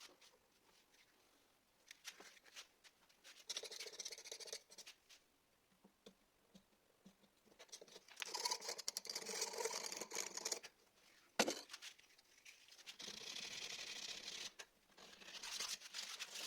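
Faint scratchy rubbing on a surface in four bursts of one to three seconds each, with a single sharp click in the middle.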